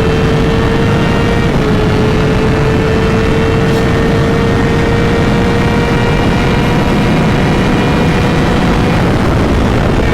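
Kawasaki 636 sport bike's inline-four engine running at speed, holding a steady note that creeps slowly higher, with a slight dip about a second and a half in. Heavy wind rumble on the microphone under it.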